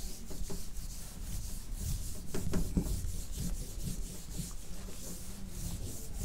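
Handheld eraser wiping a whiteboard in quick repeated back-and-forth strokes, with a few light knocks partway through.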